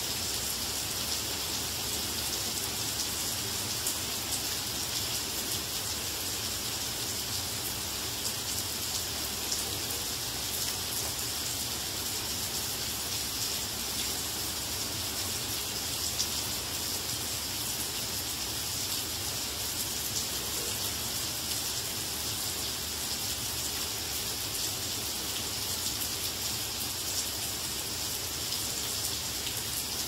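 Steady rain falling on garden foliage and flower pots: an even hiss flecked with many small drop ticks.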